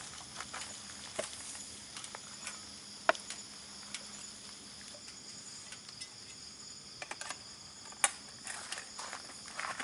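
Wood-burning tent stove giving scattered sharp crackles and pops, the two strongest about three and eight seconds in, over a steady high chirring of night insects.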